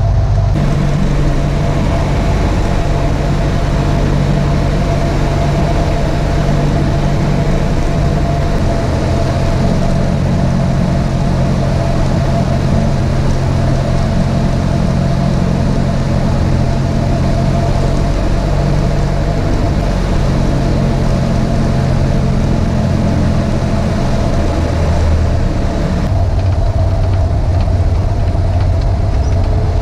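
Cabin noise of a light single-engine propeller plane: the piston engine and propeller drone steadily, with the engine note changing pitch a few times.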